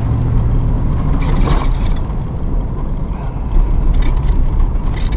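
Truck driving on a dirt road, heard from inside the cab: engine hum and the rumble of tyres on the dirt, with a few clicks and rattles.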